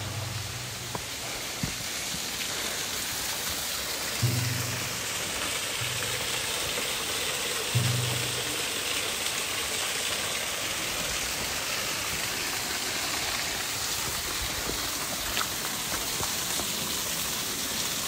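A steady, even hiss of water, like rain or a rushing stream, with a few deep notes of background music in the first half, the last about eight seconds in.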